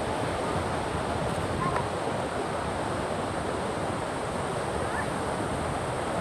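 Steady rushing of water, an even unbroken noise with no change in level.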